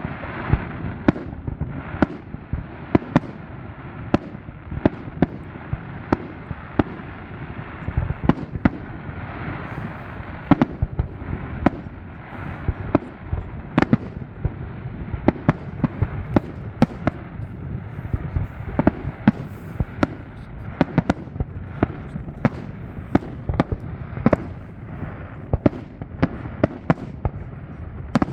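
Fireworks display: a steady stream of sharp shell bursts and bangs at irregular intervals over a constant background noise, the bangs coming thicker near the end.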